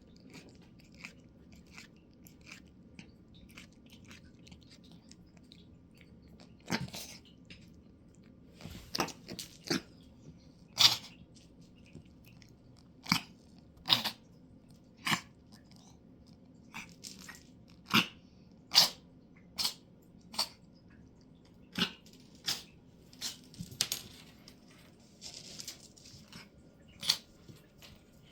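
Chewing on something hard and crunchy: irregular sharp crunches, a few of them loud, spread through the whole stretch.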